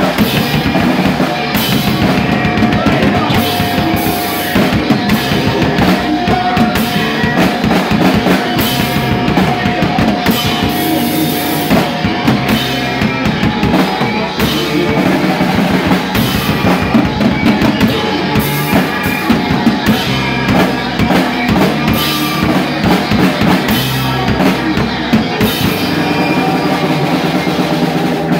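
Live rock band playing loudly, driven by a drum kit with steady bass drum and snare hits under the other instruments. A high held note runs through roughly the first half, then drops out.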